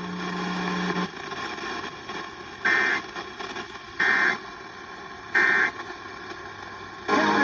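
EAS end-of-message data bursts from a weather radio alert: three short, buzzy two-tone warbles about 1.3 s apart over steady radio static. They mark the end of a severe thunderstorm warning message.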